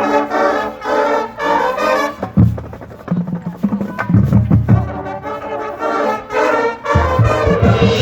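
High school marching band playing its field show: the brass section plays punchy chords, with heavy low drum hits from the battery or pit coming in between them.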